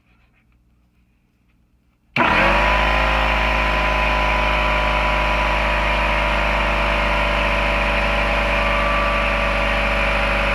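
Ridgid pancake air compressor's motor and pump kicking on abruptly about two seconds in, then running steadily with a loud hum as it pumps up the tank's pressure.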